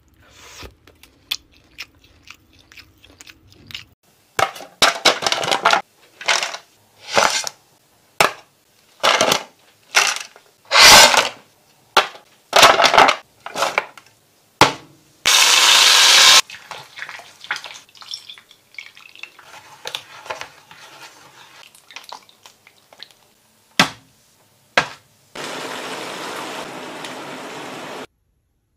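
Food-preparation sounds: a run of short rushing noises about a second apart, then scattered light clicks and knocks, and near the end a steady hiss lasting about three seconds.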